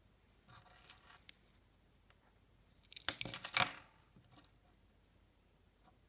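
A small plastic key-fob remote with a metal keyring being picked up and shifted on a wooden tabletop. There is light clicky rustling about a second in, then a louder scraping clatter with the keyring jingling about three seconds in.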